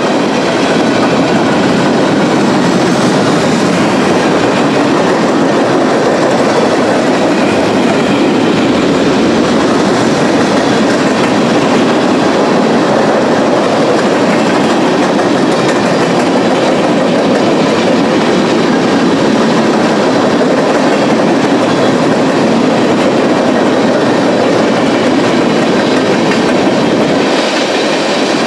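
Freight train cars rolling past at close range: a steady, loud rumble and clatter of steel wheels on the rails.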